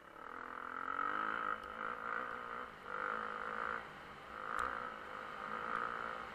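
Motocross bike engine from an onboard camera, revving up and easing off in about five surges, rising and falling in pitch as the throttle is worked. There is a single sharp knock a little past halfway.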